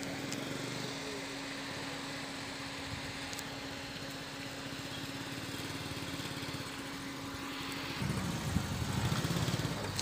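Small motorcycle's engine running at low speed as it is ridden slowly through mud. The engine gets louder and rougher about eight seconds in.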